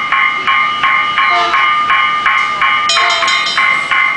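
Level-crossing warning bell ringing without a break, about three strokes a second, as the barriers stay down for an approaching freight train.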